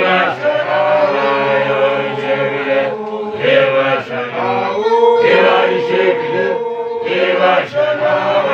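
A group of voices chanting together, singing held notes in phrases of a few seconds with short breaks between them.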